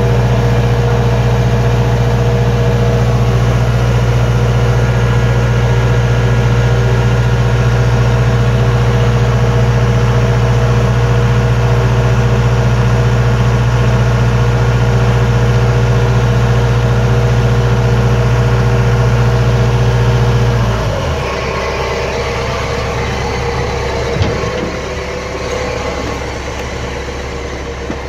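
A heavy engine running steadily at one speed, with a deep constant hum, then shutting off abruptly about 21 seconds in, leaving quieter background noise with a few small knocks.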